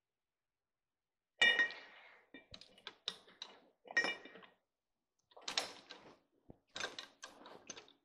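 A metal tube being pushed into a lathe's chuck and steady rest by hand, clanking and scraping metal on metal. There are several sharp, ringing clanks, the loudest about a second and a half in and others around four, five and a half and seven seconds.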